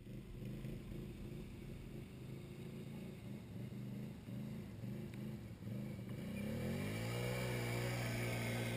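ATV engine running hard as the quad churns through a muddy field: the revs waver up and down in short pulses, then climb about two-thirds of the way through and hold high near the end.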